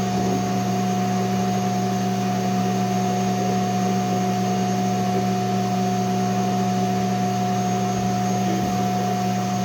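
A motor-driven machine running steadily: a constant hum with a steady rush of air, like a vacuum.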